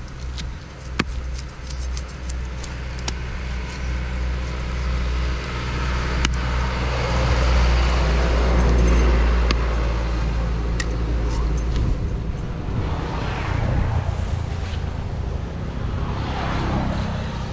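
Road traffic running close by: a steady low engine hum, swelling to its loudest about halfway through as a vehicle passes, then another vehicle going by near the end. A few sharp knocks sound over it.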